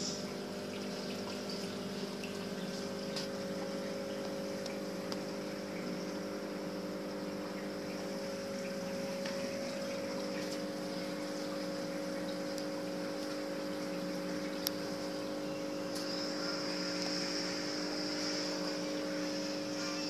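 Aquarium waterfall feature running: a steady trickle of falling water over the low, even hum of the tank's pump.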